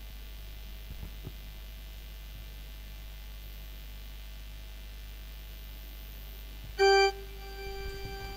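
A faint steady hum, then about seven seconds in an organ sounds a single note, loud for a moment and then held more softly, as the hymn is about to begin.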